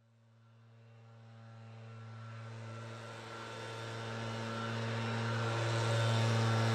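Husqvarna 580BTS backpack leaf blower's two-stroke engine running steadily at speed with the rush of its air stream, fading in from silence and growing steadily louder.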